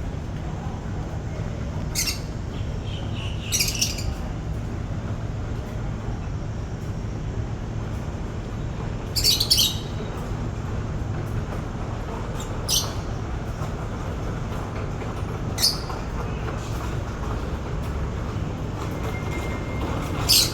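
Birds calling outdoors: about six short, sharp chirps or squawks a few seconds apart, the loudest about nine seconds in, over a steady low background rumble.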